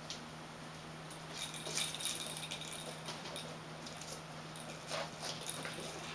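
Persian kittens playing: scattered light scratches, taps and rattles from paws and toy balls on a hard painted floor mat, busiest around two seconds in. A low steady hum runs underneath.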